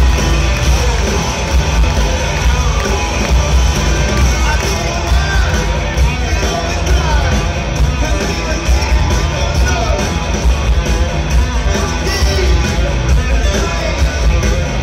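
Rock band playing live through an arena PA, electric guitar to the fore, with very heavy bass and the crowd audible underneath.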